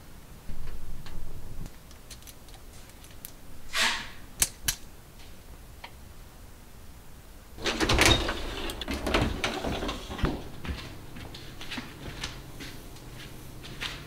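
Plastic clothespins on a hanging clip drying rack clicking and knocking as microfiber cloths are pegged on, with cloth rustling. The loudest stretch of handling and clatter comes just past the middle.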